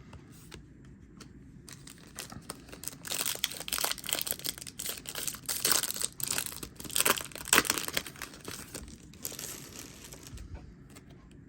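Foil trading-card booster pack being torn open and crinkled in the hands: a run of crackling, rustling tears from about two seconds in until near the end, loudest a little past the middle.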